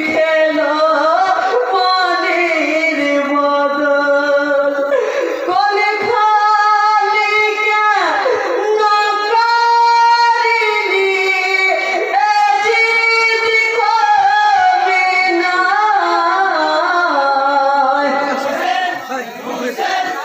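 A single male voice singing a Bengali marsiya, the Muslim elegy for the martyrs of Karbala, amplified through a microphone. He holds long notes and ornaments them, with sweeping glides between phrases.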